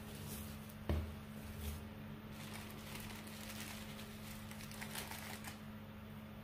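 Hands kneading a soft oat-and-raisin dough on a countertop: a dull thump about a second in and a softer one shortly after, then faint sticky pressing and patting sounds. A steady low hum runs underneath.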